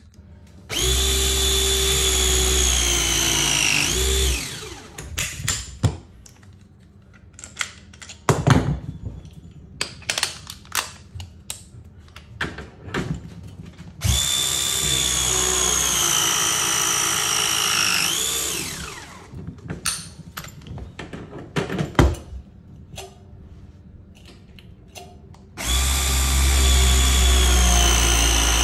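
Battery-powered ProPress press tool running three press cycles, each a steady motor whine of about four seconds that sags in pitch near its end and then sweeps up sharply as the jaws finish crimping the copper fitting. Clicks and handling knocks come between the cycles.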